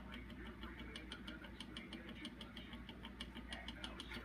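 A 1/8-scale Rider-Ericsson hot-air engine model running, its moving parts clicking lightly and evenly several times a second over a steady low hum.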